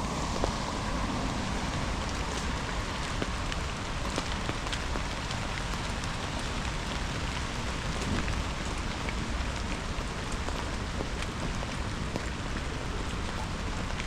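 Steady rain falling, with many small, sharp drop ticks scattered irregularly over an even hiss.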